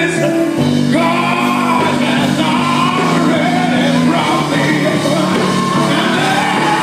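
Live gospel music: a male lead singer, amplified through a microphone, sings over a band playing held low notes, with shouts from the congregation.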